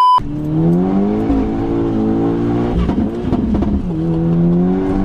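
A brief high test-tone beep, then the turbocharged 2.0-litre four-cylinder of a tuned Mk5 Golf GTI Edition 30 accelerating hard, heard from inside the cabin: the engine note climbs, breaks at a gear change about three seconds in, and climbs again.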